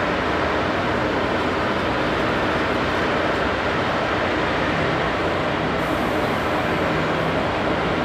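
Steady machinery noise from a concrete pour: the concrete pump and a poker vibrator running as the fresh concrete is placed and vibrated.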